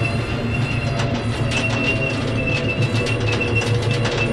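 Half-track armored vehicle driving slowly: its engine running low and steady, with irregular clanking from the tracks and a high, wavering squeal.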